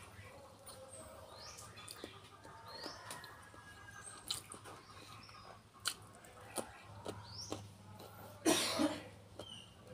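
Quiet eating sounds from fresh lettuce being handled and chewed, with sharp clicks now and then and a short, louder noisy burst near the end. Small birds chirp faintly in the background.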